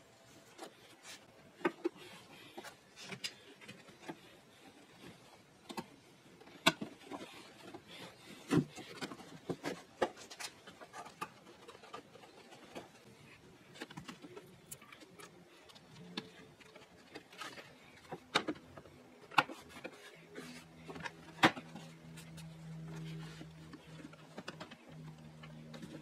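Irregular clicks, knocks and rubbing of plastic interior trim panels and carpet being handled and pressed back into place in a 2004 Honda Civic. A steady low hum comes in about twenty seconds in.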